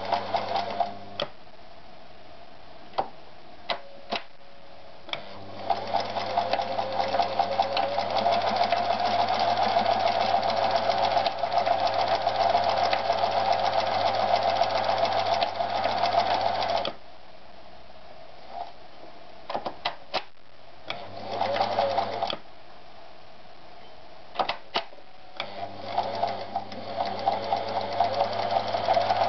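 Privileg TopStar 796 Super Automatic sewing machine stitching denim in separate runs: a short burst at the start, a long run of about eleven seconds, a brief run, then running again near the end. Sharp clicks sound in the pauses between runs.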